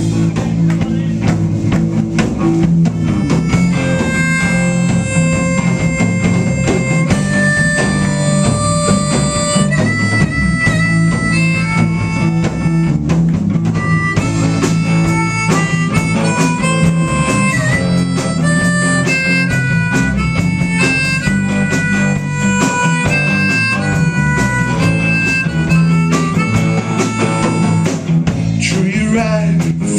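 Live blues band: a harmonica played cupped into a vocal microphone comes in about three seconds in with long held notes over electric guitar, bass guitar and a drum kit.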